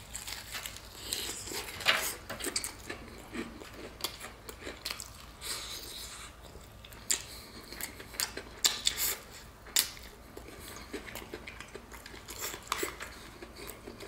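A person biting into and chewing a crispy battered fried turkey leg: irregular crunching crackles of the fried crust, with a few louder crunches.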